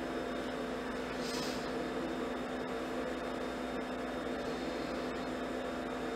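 Ice machine running with a steady hum, with a brief soft hiss about a second in.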